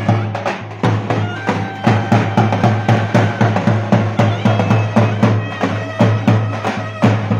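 Turkish mehter-style band music: shrill zurnas playing a melody over a steady beat on a big davul drum.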